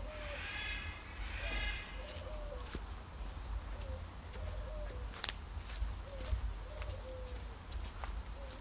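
A pigeon cooing over and over in short, low notes. A steady low rumble runs on the microphone, with a few sharp clicks.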